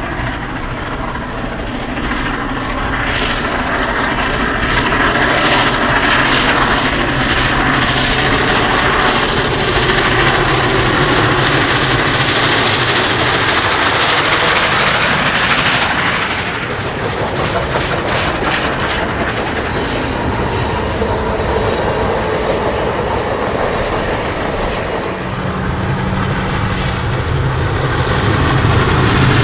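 Union Pacific 4014 'Big Boy', a 4-8-8-4 articulated steam locomotive, running past under steam: heavy, continuous, loud mechanical noise with repeated exhaust beats. The sound shifts abruptly about 16 seconds in and again near 25 seconds.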